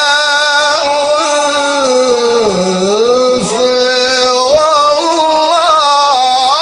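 A man's voice in melodic Quran recitation, holding one long ornamented note whose pitch wavers, sinks low about two and a half seconds in, then climbs again.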